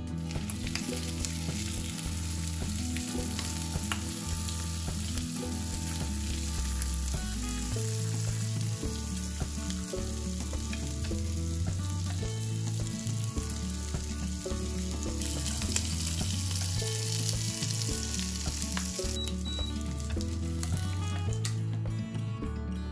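Food frying in a pan with a steady sizzle and a few light clicks of a utensil; the sizzle stops near the end. Background music plays underneath.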